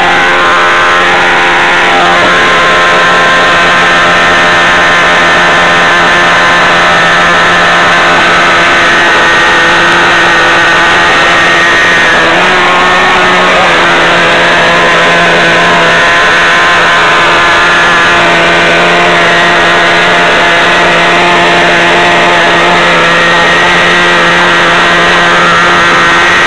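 Radio-controlled car's motor running at a steady, loud pitch, heard through a mini camera mounted on the car, with a brief shift in pitch about halfway through.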